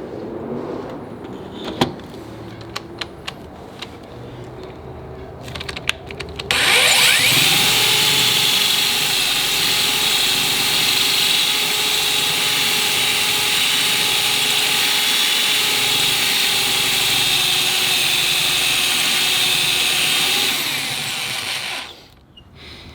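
A few light clicks and knocks, then an electric drill spins up about six seconds in and runs steadily at one pitch for about fifteen seconds before stopping. The bit is being pushed into the Mustang's floor metal for a roll bar bolt hole and is barely cutting through it.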